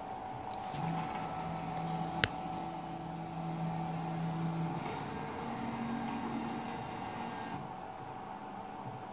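Stepper motors of a pick-and-place gantry whining as the head traverses the bed in two moves, each a steady tone, the second a little higher in pitch. A single sharp click about two seconds in.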